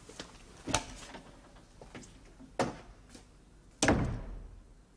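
Two knocks, then a door shutting with a heavy thud about four seconds in, which echoes briefly as it fades.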